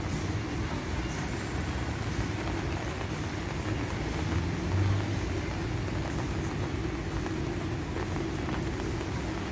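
City street traffic on wet roads: a steady hiss of tyres and running engines, with a louder low rumble about halfway through.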